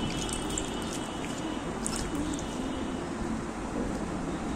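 Hands squeezing and kneading wet, sticky slime, giving soft squishes and a few sharp little clicks over a steady background noise.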